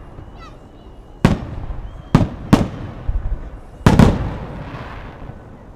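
Fireworks bursting overhead: sharp bangs come one after another, about five in all, each fading into a rolling echo. The loudest, a quick pair, comes about four seconds in.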